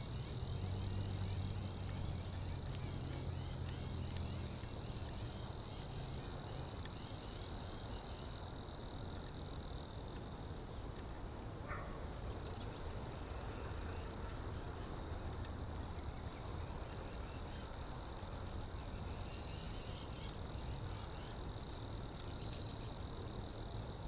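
Outdoor ambience dominated by a steady high-pitched insect trill, over a low hum that fades after the first several seconds. A few faint, very short high chips are scattered through.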